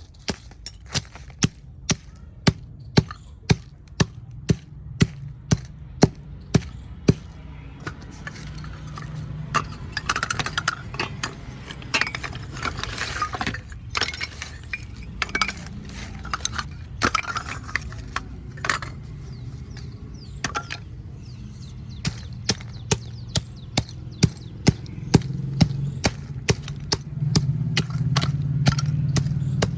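Baked clay kulhad cups being snapped and crushed, sharp dry cracks about twice a second, with a denser crunching stretch in the middle.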